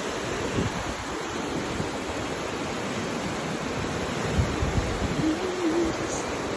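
Ocean surf breaking and washing up the beach: a steady rush of water, with low wind rumble on the microphone.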